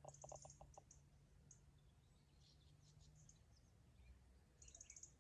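Near silence, with faint high bird chirps: a quick trill near the start and another near the end.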